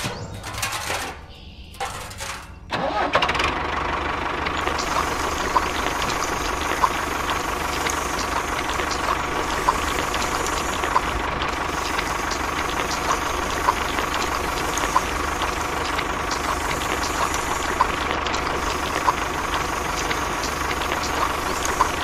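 A small machine motor starts up about three seconds in and then runs steadily with a thin whine, a sharp click recurring about every second and a half.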